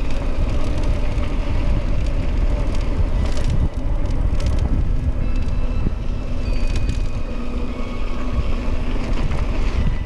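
Mountain bike rolling fast over a dirt trail: a steady rumble of wind buffeting the microphone and tyres on hard-packed dirt, with scattered rattles from the bike.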